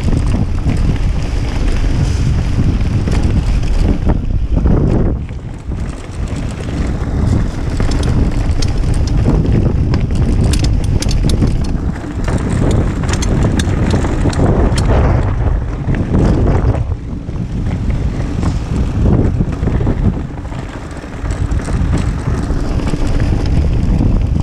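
Wind buffeting an action camera's microphone on a Kona Process 153 mountain bike riding fast down a stony dirt singletrack, over a steady rumble of tyres on the trail. A run of sharp rattles and clatters from the bike over stones comes through the middle, and the noise eases briefly twice.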